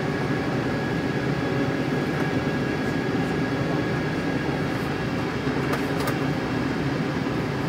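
Steady cabin noise inside a Boeing 747-8 on approach: the GEnx jet engines and the rush of air over the fuselage, with a faint steady high tone.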